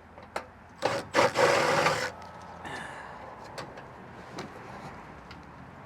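Scraping, rubbing and clicking of a 90-degree screwdriver and metal parts, as a hard-to-reach screw is worked loose from an RV furnace housing. The loudest scrape comes about a second in, and lighter clicks and scratches follow.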